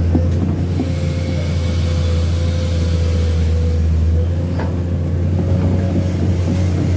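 Komatsu PC210 hydraulic excavator's six-cylinder diesel engine running steadily with a low hum and a faint steady whine above it as the machine works.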